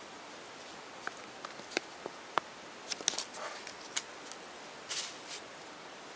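Small objects being handled by hand, heard as scattered light clicks and taps with short rustles about halfway through and again near the end; this fits handling a chocolate surprise egg, its plastic capsule and the toy inside.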